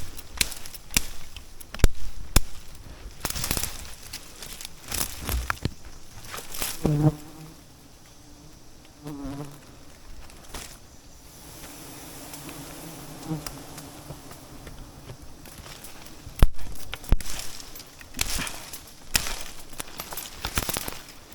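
Bees buzzing close by, with a droning hum through the middle. Frequent sharp snaps and knocks come and go throughout.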